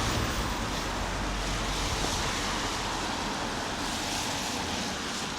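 A car passing on a wet road, its tyre hiss fading away as it goes.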